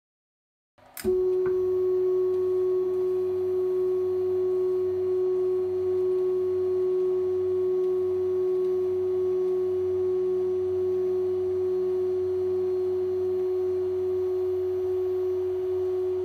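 A steady hum on one strong pitch with a fainter lower tone beneath it, cutting in abruptly about a second in and stopping abruptly at the end.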